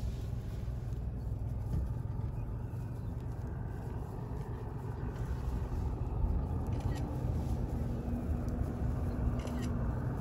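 Safari vehicle's engine and road noise: a steady low rumble, with a faint hum coming in about halfway through.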